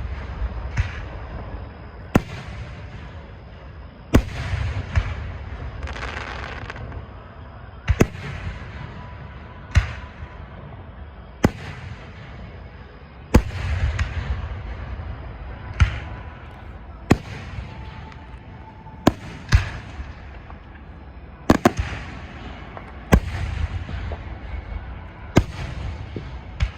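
Aerial fireworks going off in a steady series, a sharp bang every one to two seconds, each followed by crackling and a low rumbling echo.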